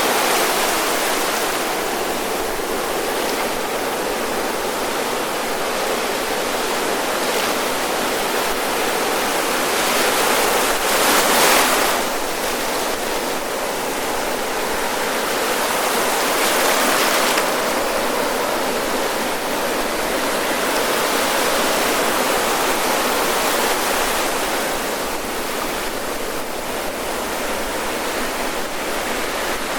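Ocean surf breaking and washing up the shore in a steady hiss. It swells loudest as a wave comes in about ten seconds in, and swells again with another wave a few seconds later.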